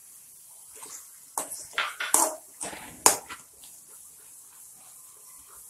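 A spatula scraping and knocking against a metal pan as thick halwa is stirred: a run of short scrapes and clicks, the sharpest knock about three seconds in.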